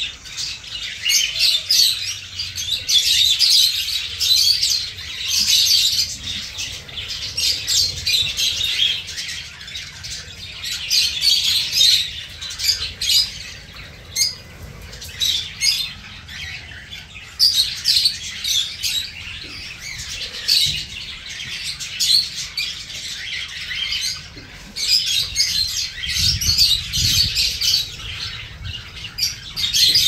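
A colony of small cage birds, budgerigars and finches, chirping and chattering continuously in many overlapping high calls that swell and ease every few seconds.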